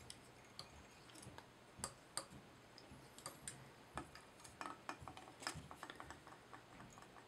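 Faint, irregular small clicks and ticks of hands and fly-tying tools being handled at the vise while a tinsel rib is wrapped around the hook.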